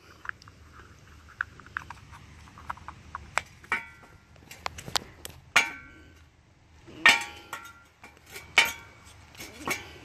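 Irregular light clicks and ringing clinks from handling a concrete mixer's plastic wheel, its metal spring retaining clip and an orange plastic hub cap being fitted onto the axle. The loudest clinks come about four to nine seconds in.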